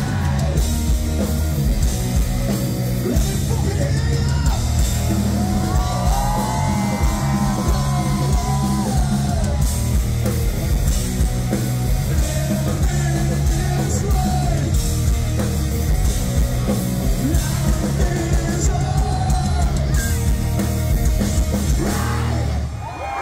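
Live rock band playing loud through a crowd member's phone: electric guitar, bass and drum kit under a singer's yelled vocals. The music drops away just before the end.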